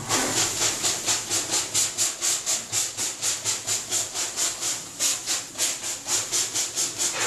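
Hand spray bottle squirting water into a hot wood-fired bread oven to make steam for baking. Quick hissing squirts come in an even rhythm of about four a second, then stop near the end.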